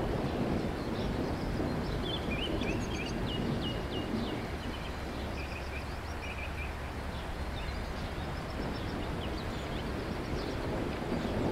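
Birds chirping in short quick series over a steady low outdoor rumble of wind. The chirps are thickest a few seconds in and scattered after that.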